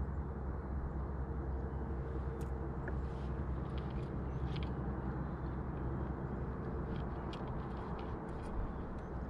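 Boat motor running steadily, a low hum, with a few light clicks as fishing tackle is handled.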